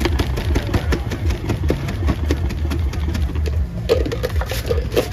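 Lemon slices being pounded in a plastic cup with a metal muddler pushed through its lid: a rapid, even run of dull knocks, about five or six a second, over a low steady rumble.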